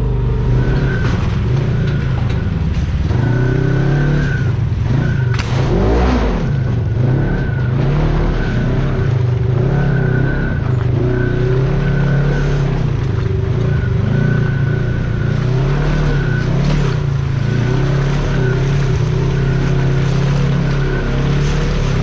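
Side-by-side UTV engine running under load, its pitch rising and falling as the throttle is worked up and down.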